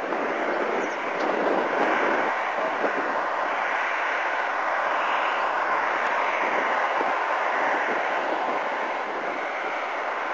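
Boeing 757 twin jet engines running as the airliner rolls along the runway, a loud, steady jet noise that swells slightly a second or two in.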